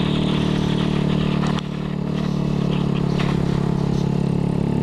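Honda Grom's small single-cylinder engine running under way, with wind and road noise. About one and a half seconds in, the engine note dips briefly, then climbs steadily as the bike picks up speed again.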